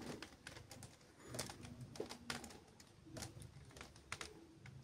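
A domestic cat purring as she is petted. The low purr comes in pulses about a second long, one per breath, with scattered faint clicks and rustles over it.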